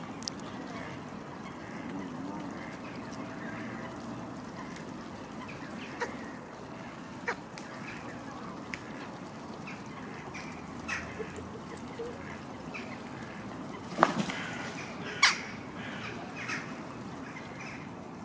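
Ducks and Canada geese calling in short scattered calls over a steady outdoor background. Two louder sudden sounds stand out, a little over a second apart, about three quarters of the way through.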